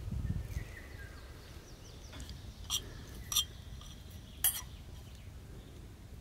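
Metal spoon stirring dry-toasted nuts and seeds in a metal pan, clinking sharply against the pan three times.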